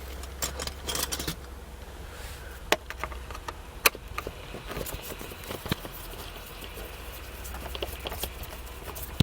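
Scattered sharp clicks and light knocks from a screwdriver working screws out of a plastic steering column cover, over a low steady hum.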